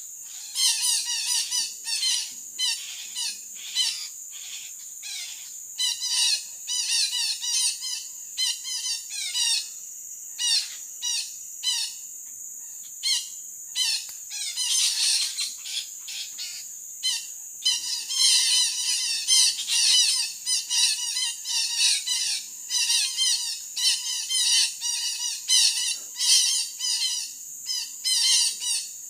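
Red-breasted parakeets (betet) squawking: short harsh calls in rapid runs, thinning out for a few seconds in the middle and then coming thick again. A steady high insect drone runs underneath.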